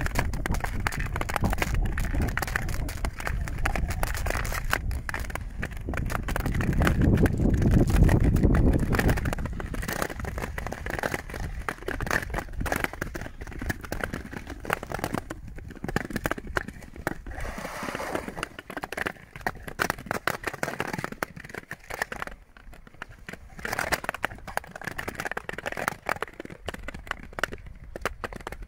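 Ice skates gliding and scraping over thin, clear lake ice, with many sharp crackles and clicks from the ice. A louder low rumble builds from about six to nine seconds in.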